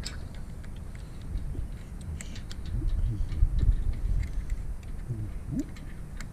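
Scattered light clicks and taps over a steady low rumble.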